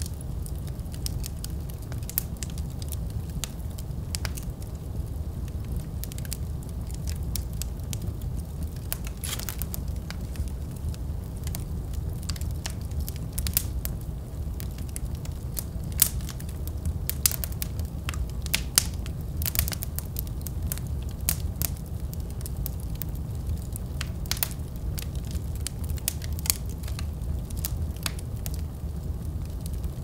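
Wood logs burning in a fireplace: a steady low rumble of flames with scattered crackles and sharp pops. The pops come thicker through the middle, with the loudest a little past halfway.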